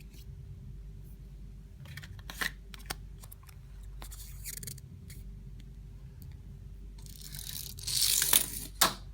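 Foil wrapper of a Kinder Surprise egg crinkling as it is handled: brief crackly rustles about two and four seconds in, then a louder rustle of about two seconds near the end with a couple of sharp crackles.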